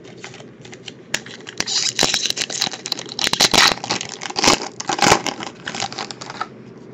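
A foil trading-card pack wrapper torn open and crinkled in the hands: a run of crackling rustles and sharp tearing snaps that starts about a second in and stops shortly before the end.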